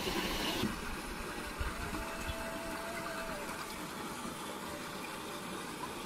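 Steady rush of flowing water, even and unbroken, with no distinct splashes.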